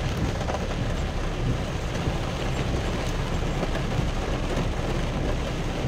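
Steady rumble of a vehicle driving slowly along a wet, muddy dirt track, heard from inside the cab: engine and tyre noise with an even hiss over it.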